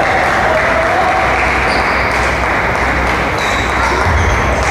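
Table tennis rally: the ball clicking off the paddles and the table several times, over a steady din of crowd noise in a large hall.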